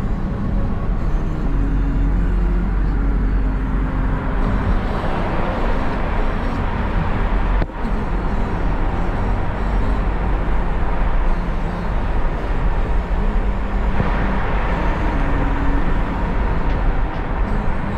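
Steady rumble of a car's engine and tyres while driving, heard from inside the cabin, with one brief dip about eight seconds in.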